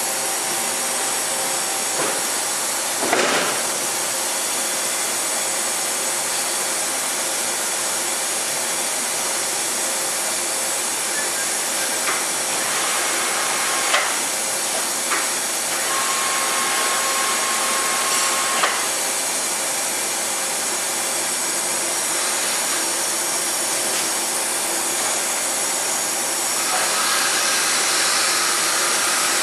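DMG Mori Seiki DMU 50 five-axis machining center running, its spindle turning at about 3,800 RPM with a steady hiss and faint hum, while the tilting rotary table moves between positions. Several sharp clicks and a steady tone lasting about three seconds past the halfway point, and the hiss grows louder near the end.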